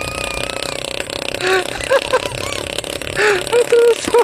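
A motor running steadily, with people's short calls and shouts over it from about a second and a half in.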